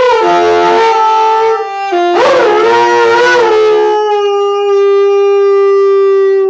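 A dog howling along to a wind instrument, with long wavering howls that swoop in pitch over steady held notes. Near the end the instrument holds one long steady note.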